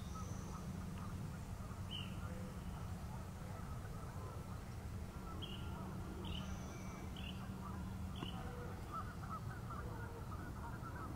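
Distant waterfowl honking and calling, with a handful of short, high bird calls, over a steady low rumble.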